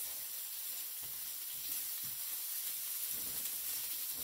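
Chopped red peppers sizzling in hot sesame oil in a frying pan, a steady hiss, with a silicone spatula stirring them a few times.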